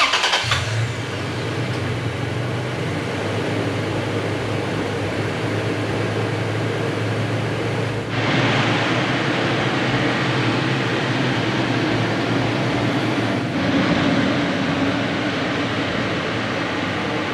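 Toyota Tacoma's engine starting and then idling steadily. A louder hiss joins the idle about eight seconds in.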